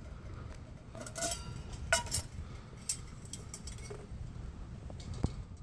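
Scattered light clinks and taps of camp cookware being handled, a plastic drip coffee cone, its filter and lid, the clearest about two seconds in, over a steady low rumble.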